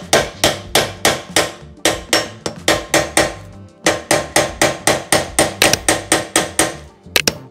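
Rapid hammer blows on a steel hex bit used as a punch against the pin that locks a KitchenAid stand mixer's planetary hub, driving the pin out; metal on metal, with a short ring after each strike. About three to four blows a second, with a brief pause about halfway.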